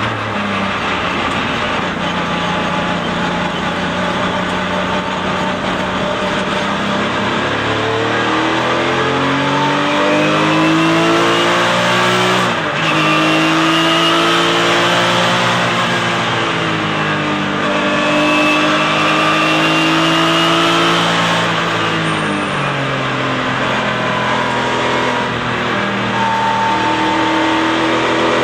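Porsche 996 GT3 Cup race car's flat-six engine heard from inside the cockpit under hard acceleration. The engine note holds low, then climbs steadily and drops sharply at a gear change about twelve seconds in, then climbs again, falls back once more around twenty-two seconds in and rises again near the end.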